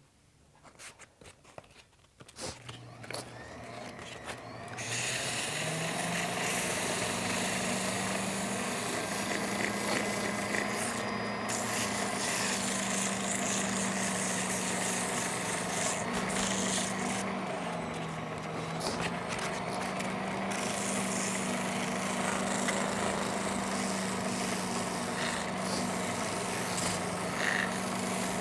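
Rod-building lathe motor starts a couple of seconds in and runs with a steady hum, while 240-grit sandpaper rubs against the spinning cork ring grip in a continuous rasping hiss.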